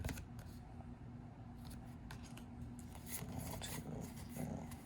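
Pokémon trading cards sliding and rubbing against one another as they are handled, with light scraping ticks scattered through.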